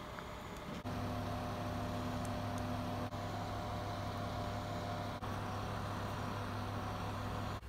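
A steady low mechanical hum with a few held tones, starting about a second in, with two brief dips.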